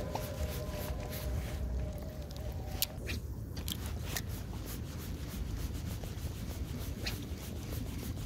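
Spinning rod and reel being worked during a popper retrieve, giving many small clicks and rubbing sounds over a steady low rumble of wind on the microphone. A faint steady hum stops about three seconds in.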